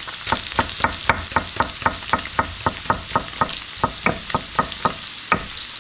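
Kitchen knife slicing a green onion on a wooden cutting board in quick, even chops, about four a second, stopping about four seconds in with one last chop a second later. Tofu frying in oil sizzles steadily underneath.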